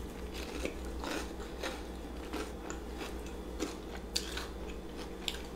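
Close-up chewing of a beer-battered deep-fried king crab leg, with scattered crisp crackles of the fried batter crunching between the teeth.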